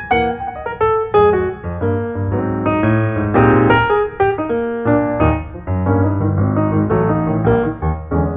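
Background piano music: a busy run of struck notes, several a second.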